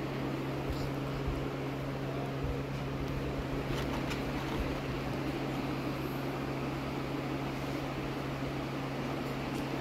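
Steady low mechanical hum that holds one pitch throughout, with a few faint light ticks about four seconds in.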